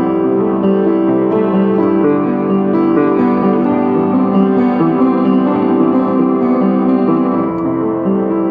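Upright piano playing a slow melody of held, ringing notes. The instrument is out of tune, and the melody keeps to the few keys still in tune.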